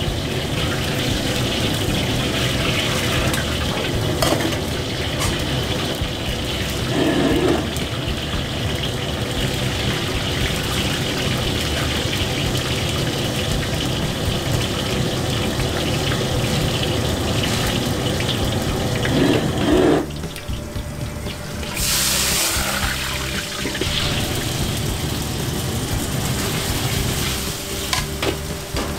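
Commercial gas wok range running: the burner's steady roar and water running from the range's tap, with hot oil sizzling in a carbon-steel wok and a metal ladle scraping and knocking against it. About 22 s in comes a sharp burst of sizzling as more food goes into the hot oil.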